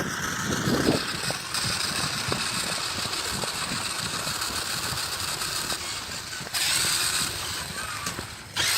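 A toy RC car's small electric motor and gears whirring as it drives, with a stream of rattling ticks from the wheels and chassis over the ground. The whir surges louder about six and a half seconds in, dips, then comes up again near the end.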